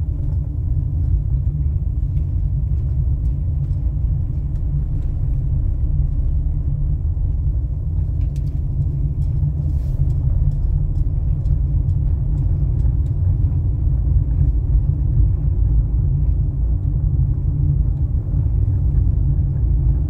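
A car driving at low speed, heard from inside the cabin: a steady low rumble of road and engine noise.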